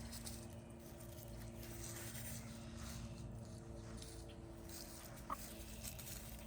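Chickens foraging in grass and leaves: faint soft scratching and rustling, with one short chirp about five seconds in.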